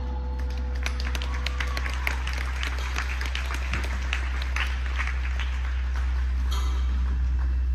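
Scattered hand claps, several a second and uneven, over a steady low hum; the claps thin out about five and a half seconds in.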